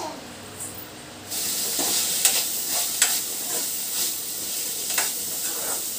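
Food sizzling in a steel pan on a gas stove, starting about a second in, while a metal ladle stirs and clinks sharply against the pan a few times.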